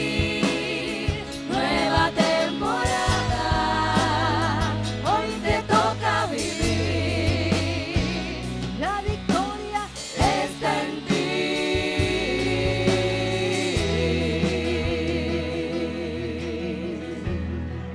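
Live gospel worship song: a woman's lead voice singing with vibrato, joined by backing singers over a band with steady bass notes.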